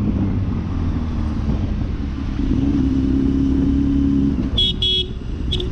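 Motorcycle engine running steadily under way with road noise. About four and a half seconds in, a horn gives two quick toots, then a third short one.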